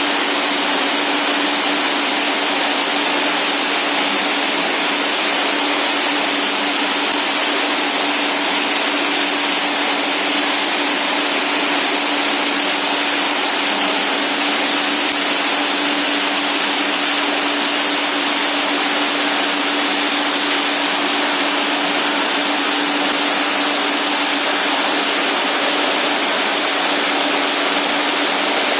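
PET bottle label separator and its feed conveyor running with bottles passing through: a steady, loud mechanical rush with a constant hum.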